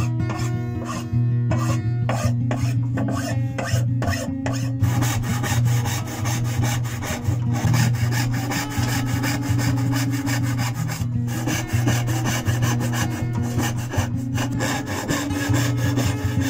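A hand file worked back and forth in separate strokes for the first few seconds. Then a brass-backed tenon saw cuts a wooden board in quick, steady strokes. Soft background music plays underneath.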